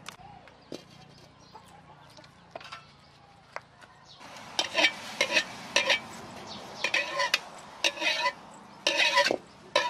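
A metal ladle scraping and stirring around the inside of an empty aluminium wok, in a series of loud, rough, ringing strokes starting about four seconds in.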